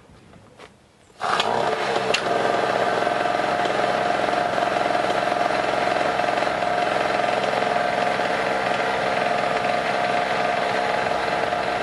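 Harbor Freight 800-watt, 63cc two-stroke portable generator firing right back up about a second in on a warm restart after being killed, then running steadily at an even speed.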